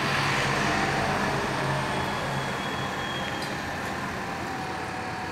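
A heavy vehicle engine runs steadily amid city street traffic noise. The engine's hum is strongest for the first couple of seconds and then eases off a little.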